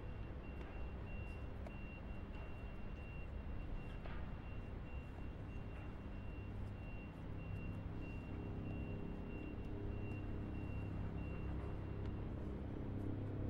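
A steady low machine hum, like an idling engine, with a quick run of short high-pitched beeps that stops near the end.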